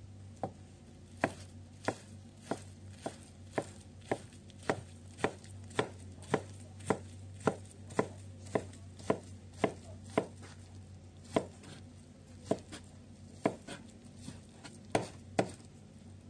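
Kitchen knife chopping on a plastic cutting board: a steady stroke about twice a second, then a short pause and a few scattered strokes in the second half. A faint steady low hum lies underneath.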